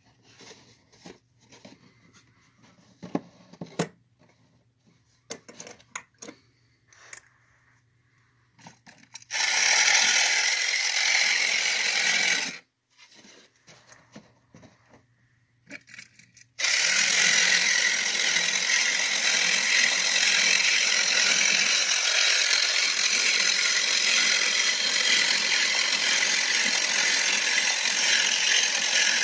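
A 1967 Hong Kong battery-operated walking robot toy running: its electric motor and gears make a steady grinding whir, first for about three seconds a third of the way in, then again without a break through the last twelve seconds. Before that, scattered light taps and clicks of the toy and its box being handled.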